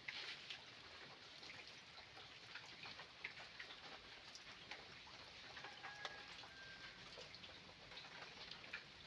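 Faint light rain: a steady soft hiss with scattered small drop ticks.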